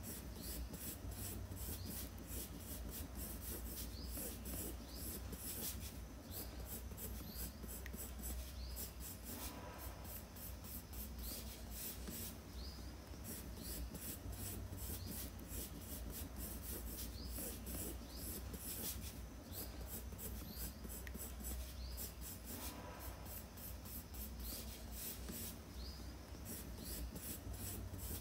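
Brustro blue coloured pencil scratching on sketchbook paper in many quick, short strokes, over a steady low hum.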